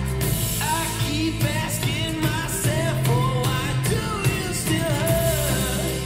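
Rock-style song with a sung vocal, played back through JBL Control 1G loudspeakers and picked up by a microphone in the room. The voice comes in about half a second in over a steady beat and bass.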